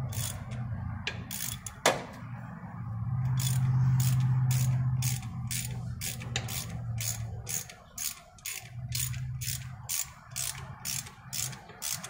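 Hand ratchet clicking in an even rhythm, about two to three clicks a second, as it turns the forcing screw of a short-jawed harmonic balancer puller to draw the balancer off the crankshaft nose of a Ford 3.5 L engine. A steady low hum comes and goes underneath.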